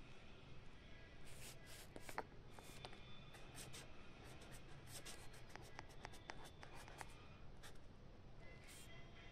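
A pen writing on paper: faint, irregular scratching strokes of varying length, some sharp and brief.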